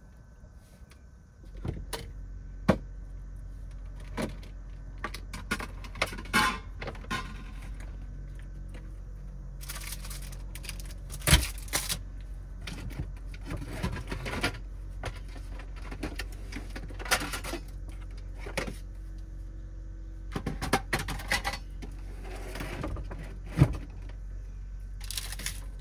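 Household handling sounds in a camper van's small kitchen: scattered clicks, knocks and clatter of objects being set down and moved about on a wooden counter, with a few sharper knocks, over a steady low hum.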